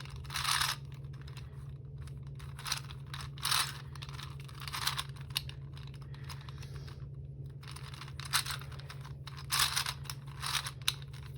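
A plastic gear ball twisty puzzle being turned by hand, its gears clicking and clacking in uneven bursts as faces are rotated. A steady low hum runs underneath.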